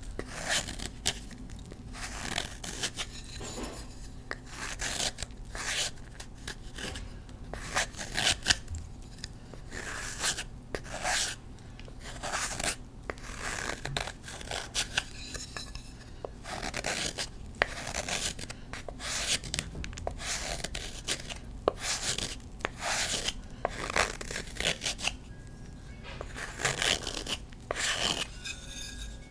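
A knife blade shaving a block of Colift gym chalk (magnesium carbonate): repeated short, dry scraping strokes in quick succession as thin crumbly flakes peel off the block.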